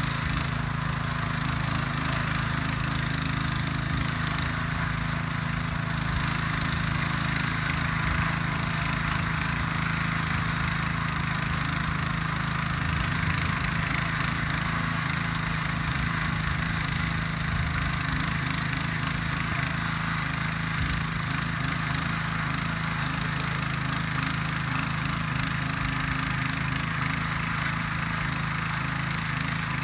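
Ruris DAC 7000 ACC2 motor hoe (walk-behind rotary tiller) running steadily under load, its engine holding an even note while the rotary tines churn dry garden soil.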